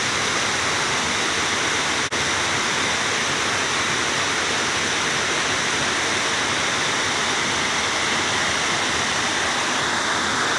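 Waterfall pouring: a steady, loud rush of falling water, with a momentary break about two seconds in.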